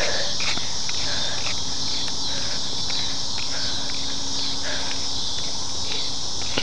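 Steady, high-pitched chorus of insects such as crickets, with light footsteps on a paved path about twice a second.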